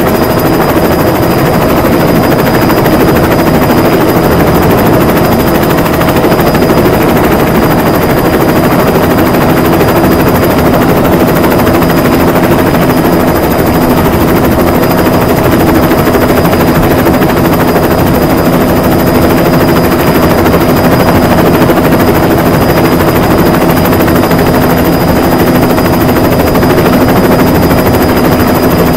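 Loud, steady engine drone with a fast rattling pulse, holding even throughout; a lower hum joins about nine seconds in.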